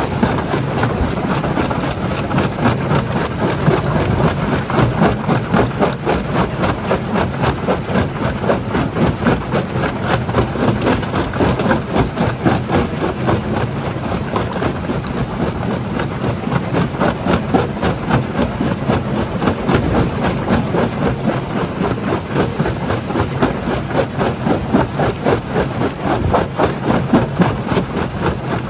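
Stone-crushing plant running: a steady heavy machine hum under a dense, irregular crackle and clatter of rock being broken.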